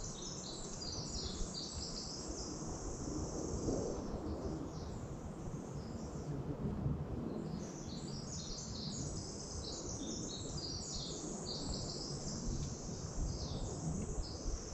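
Small songbirds chirping and twittering, many quick high notes overlapping throughout, over a steady low background rumble.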